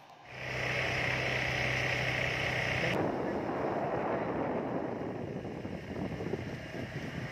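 Motorbike engine comes on just after the start and runs with a steady hum. From about three seconds in, as the bike rides along the wet road, wind rushing on the microphone and road noise take over.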